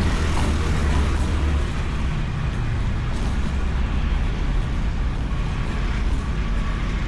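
Honda Beat scooter's small single-cylinder engine running on the move, heard through a bike-mounted camera with wind and road noise. The low engine drone is heavier for about the first second and a half, then eases to a steadier level.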